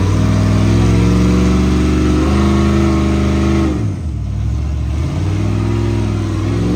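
Rock bouncer buggy's engine revving hard as it climbs a steep rock ledge. The revs climb, fall away sharply about four seconds in as the throttle lifts, then build again.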